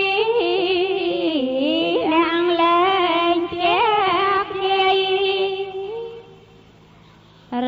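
A single high voice chanting Buddhist verses in a long, drawn-out melodic line, its notes sliding up and down. It breaks off about six seconds in, leaving a short quiet pause.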